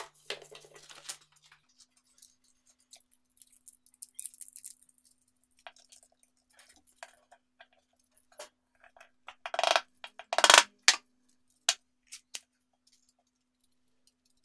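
Utility knife blade scraping through sandpaper along a steel ruler for about a second at the start, then scattered light handling clicks and paper rustle. About ten seconds in come a handful of loud sharp knocks and metallic clinks as a homemade sanding drum's metal bolt, nut and bearing parts are handled.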